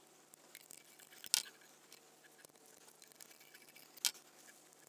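Quiet handling of small metal hardware and tools: faint scattered ticks, with two sharper clicks about a second in and near the end.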